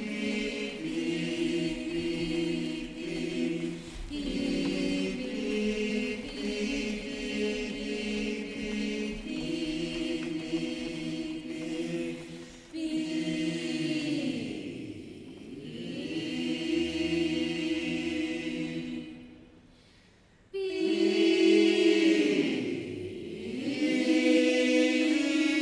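Ten-voice mixed a cappella ensemble singing held chords that change every couple of seconds. Twice the voices slide down in pitch and back up, and after a brief near-silent pause about twenty seconds in they come back in louder.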